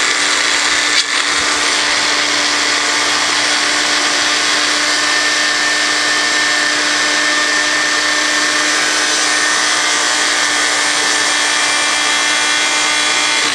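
Magic Bullet Express Deluxe personal blender motor running steadily at full speed while blending frozen blueberries, a constant whine over a harsh buzz. At the very end it is released and the whine starts to fall as the blade spins down. The top of the load is not reaching the blade, leaving the blueberries unchopped.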